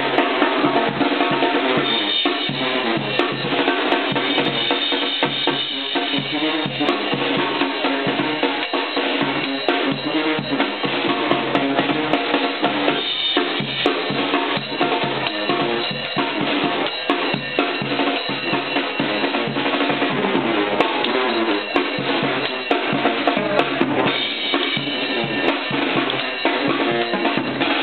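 Brass band playing loud, continuous music: sousaphone and horns over a driving drum kit with snare and bass drum hits.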